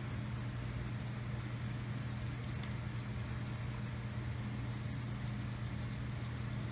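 Steady low hum in the room, with faint scratches of a paintbrush scrubbing wet paint on paper.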